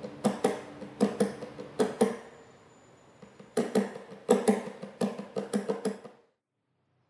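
Hands tapping and slapping the body of an acoustic guitar like a drum: sharp knocks with a hollow ringing boom, in two rhythmic runs with a pause of about a second and a half between. It cuts off about six seconds in.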